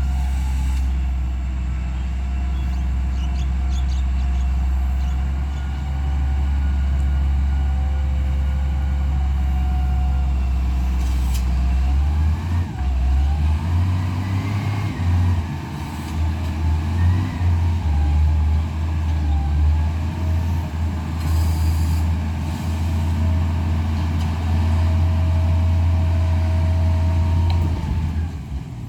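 Heavy vehicle engine running with a steady low hum, then turning unsteady about halfway through as it works harder, with faint whining tones rising and falling.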